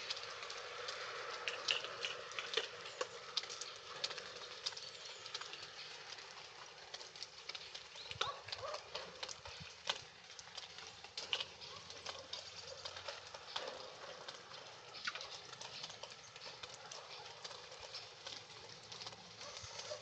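Water drops pattering in irregular light ticks over a soft steady hiss.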